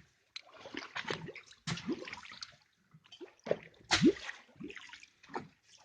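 Water splashing and sloshing in short, irregular splashes, with a few brief gurgles.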